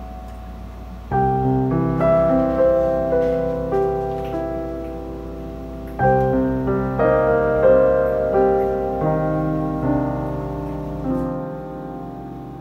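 Background piano music: a gentle melody of struck notes that ring and fade, with fresh phrases starting about a second in and again about six seconds in.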